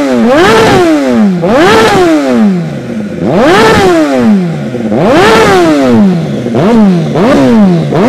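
MV Agusta F4's inline-four engine breathing through an aftermarket Hurricane Evolution Oxy exhaust, revved loud in about seven quick throttle blips. Each one rises sharply and falls back, and the last few come in quicker succession.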